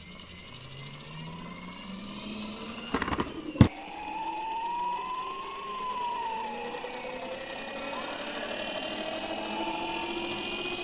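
Toy cars rolling down a slope, their wheels whirring with a pitch that slowly rises. About three seconds in there is a brief clatter, then one sharp knock.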